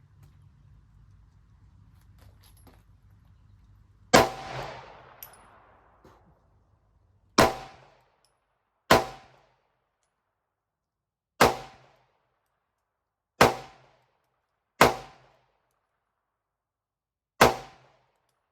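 Seven single gunshots, fired one at a time with pauses of about one and a half to three seconds between them, each a sharp crack with a short ringing tail.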